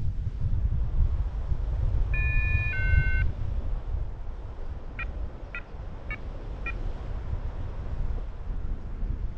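Wind rush buffeting the microphone as the paraglider flies off the launch, with the cockpit flight instrument (variometer) beeping: a two-note tone about two seconds in, then four short beeps about half a second apart.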